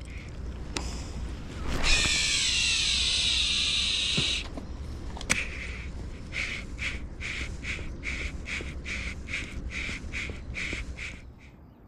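A cast with a baitcasting reel: the spool whirs loudly for about two seconds, falling in pitch as it slows, with a sharp click just after. Then a rhythmic retrieve of the big pencil-bait topwater lure, short sounds about three a second as it is worked back.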